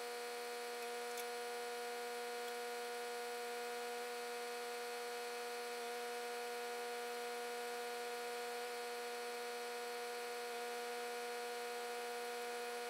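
Steady electrical hum made of several fixed pitches over a faint hiss, with no change in pitch or level.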